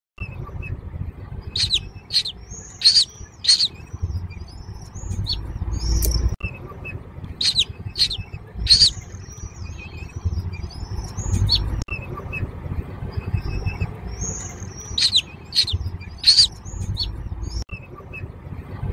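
Downy hawk chicks begging for food with shrill, piercing calls that come in clusters, mixed with shorter down-slurred cheeps. A low rumble runs underneath.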